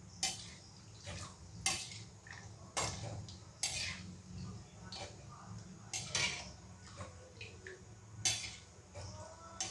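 A metal slotted spoon clinking and scraping against a metal kadhai while stirring cashews and almonds frying in ghee: several sharp knocks at uneven intervals.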